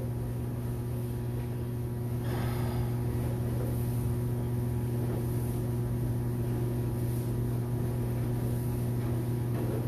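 A steady, low, even-pitched electrical hum, with a brief scraping rustle about two seconds in.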